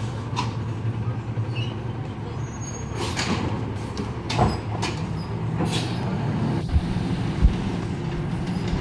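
Recycling collection truck's engine running steadily, with a few short, sharp noises from the truck in the middle and two heavy thumps near the end.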